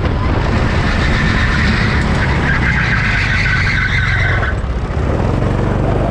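Car engine running hard with its tyres squealing; the squeal starts about a second in and stops abruptly about four and a half seconds in while the engine keeps running.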